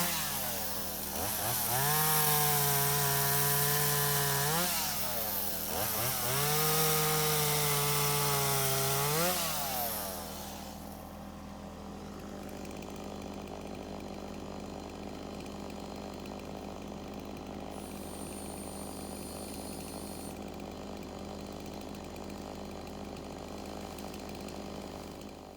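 Chainsaw running at high revs while cutting. Its pitch sags and recovers three times, then it stops about ten seconds in, leaving a quieter steady engine hum.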